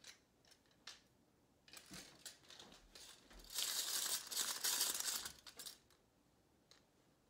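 Faint handling noise: a few light clicks and knocks from a metal rotary egg beater being handled, then a crinkling, rustling hiss lasting about two seconds, starting about three and a half seconds in.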